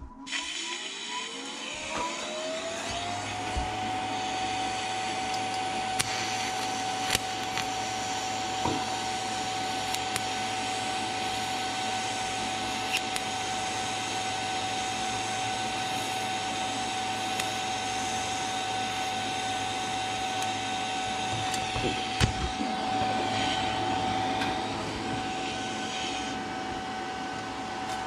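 TIG welding arc laying a fusion bead without filler metal: a steady hiss and buzz, with a whine that rises over the first few seconds and then holds. Near the end there are a few sharp crackles, where the tungsten is dipped into the puddle, and then the arc hiss fades while the whine goes on.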